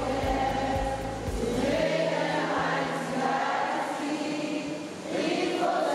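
A group of girls singing together in a choir-like chorus. A low, regular beat under the voices stops about two seconds in.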